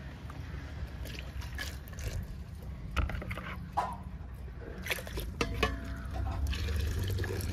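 Milk being ladled into a steel pot of boiling tea: pouring and splashing, with the metal ladle clinking against the pot several times, over a steady low rumble.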